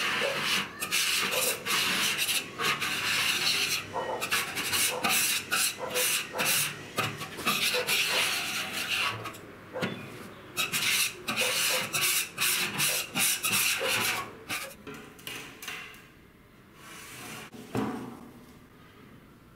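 A hand scraper scraping blistered paint off the steel lid of a 55-gallon drum in quick, repeated rasping strokes. The scraping stops about fifteen seconds in.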